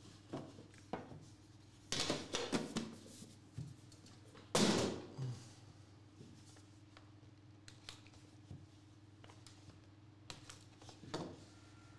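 Hands unpacking a trading-card box: knocks and clicks of a metal tin and a cardboard card box being handled on a desk mat, with a short scraping rush about four and a half seconds in and lighter clicks after.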